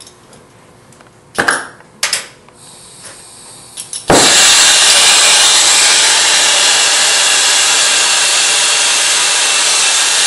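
Air-acetylene hand torch being lit: a few sharp clicks, then about four seconds in the flame catches suddenly and burns with a loud, steady hiss.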